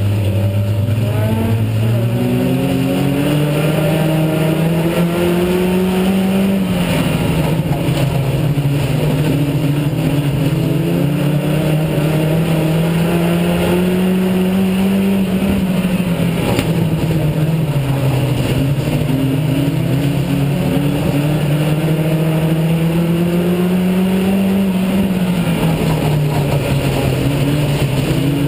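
Dirt-track race car engine heard from inside the cockpit, pulling hard under racing load. It climbs in pitch along each straight and drops back as the driver lifts for each turn, three times over, after a quick rise about two seconds in.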